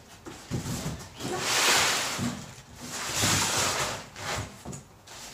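Cardboard box flaps and plastic wrapping rustling and crinkling as a charge pipe is unpacked by hand, in two long rustles, about a second in and again about three seconds in, with a few light knocks of the box.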